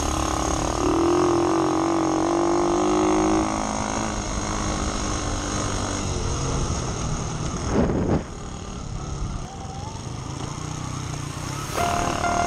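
Dirt bike engine running hard as the bike is ridden fast over a dirt track, the engine note holding steady early on and rising again after easing off about eight seconds in.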